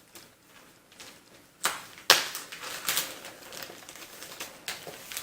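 Old paper documents and Feldpost envelopes being handled and lifted out of a box: light paper rustling with a few sharp taps and clicks, the loudest just after two seconds in.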